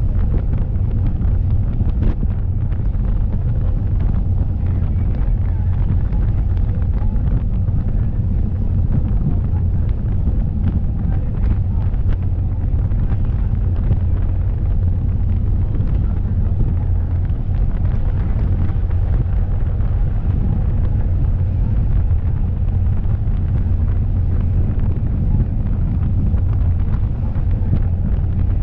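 Water taxi under way at speed: a steady deep rumble of engines and rushing wake, with wind buffeting the microphone.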